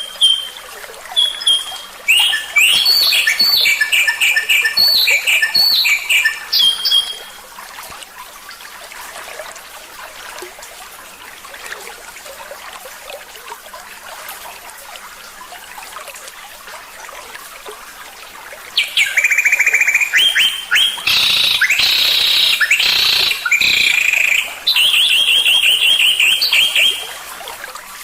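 Songbird singing in runs of rapid, high, repeated trills and chirps. After the first run there is a long pause with only faint hiss, then a second, longer run of trills.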